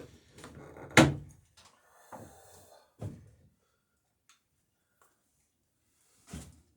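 Hammer blows setting boat rivets (nails peened over burrs on a dory plank), with a bucking iron held against the other side: a loud sharp strike about a second in, a lighter one about three seconds in and another near the end.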